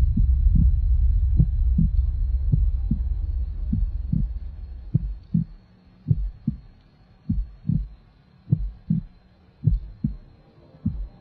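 Heartbeat sound effect: pairs of short low thumps, a pair a little more often than once a second. It plays over a low rumbling drone that fades out over the first few seconds, leaving the thumps alone.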